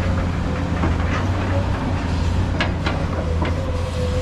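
Heavy diesel engine running steadily with a low rumble, with a few sharp knocks a little past the middle.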